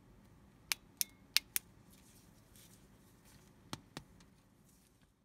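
Sharp clicks from the tail switch of a small aluminium flashlight being worked: four quick clicks about a second in, then two more near the four-second mark.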